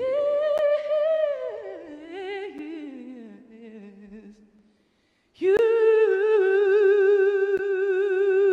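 Female vocalist singing unaccompanied into a microphone: a high note that slides down in a long, winding run, a brief pause, then one long note held with vibrato.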